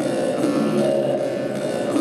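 Music, a steady texture of held notes that shift in pitch every half second or so.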